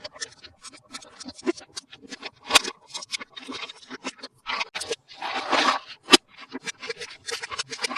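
Toy packaging being handled up close: a run of small clicks, taps and scrapes, with a couple of sharper clicks and a longer crinkling rustle a little past the middle.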